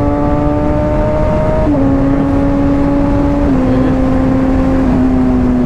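Honda CBR600RR's inline-four engine with a slip-on exhaust, riding along in third gear at steady moderate revs. The pitch slowly sags and shifts in small steps up and down a few times as the throttle changes.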